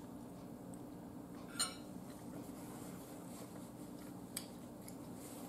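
Quiet eating sounds at a table: two short soft clicks, one about a second and a half in and a fainter one near four and a half seconds, over a steady low hum.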